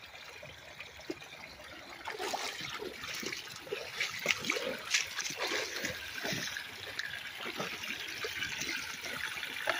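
Water gurgling and splashing through a pump-fed gold-mining power sluice, swirling in the classifier bowl and spilling off the end of the sluice into a creek. It grows louder and more splashy about two seconds in.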